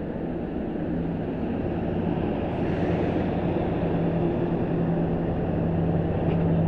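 Diesel train engine running with a steady low hum that grows slowly louder.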